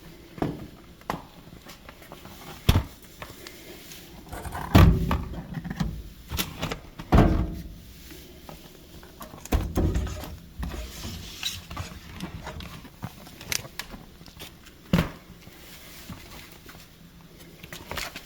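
Irregular knocks, thumps and scraping from a furnace's filter access door and air filter being handled: the lower door is pulled off and the filter slid in its slot. A few heavier thumps stand out, about five and seven seconds in and again about ten seconds in.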